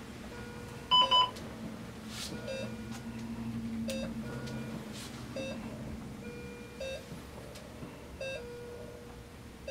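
Cardiac monitor sounding a short heartbeat beep about every 1.4 s, a slow rate of roughly 40 a minute, in step with the patient's sinus bradycardia. About a second in come two louder, higher beeps.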